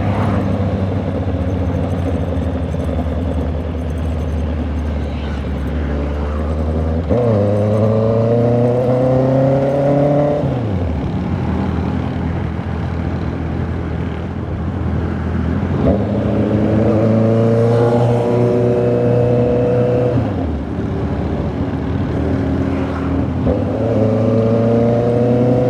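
Honda CB650R inline-four engine and exhaust riding under way: steady for the first several seconds, then pulling up in pitch through a gear about seven seconds in before dropping back off the throttle, running steadily again mid-way, and pulling up once more near the end.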